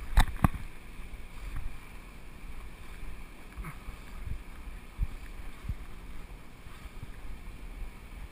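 Handling noise on a body-worn camera: a hand knocks against it twice in quick succession just after the start, then a steady low rumble of wind on the microphone with a few dull bumps.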